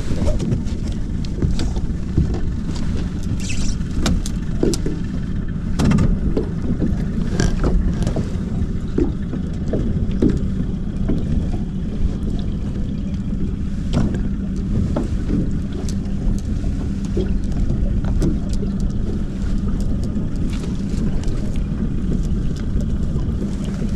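Fishing boat's engine running steadily with a low hum, with scattered light knocks and clicks on the deck.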